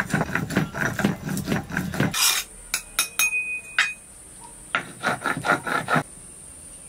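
Stone pestle rolled and rubbed back and forth on a flat grinding stone (shil-nora), grinding wet spice paste: a gritty rasping at about five strokes a second. The strokes stop about two seconds in and resume briefly around five seconds in.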